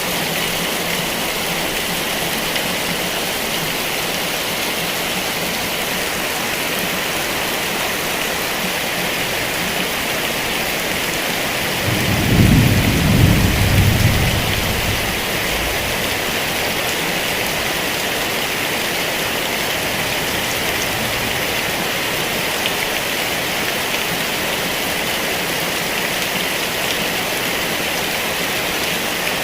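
Heavy rain falling steadily, with one rumble of thunder rolling in about halfway through and fading over two or three seconds.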